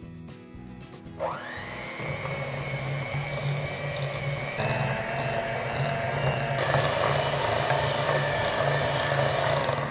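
Electric hand mixer switched on about a second in, its motor whine rising quickly and then running steadily as the beaters cream butter with brown and white sugar.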